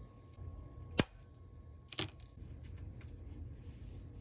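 Flush cutters snipping soldered component leads on a circuit board: two sharp snips about a second apart.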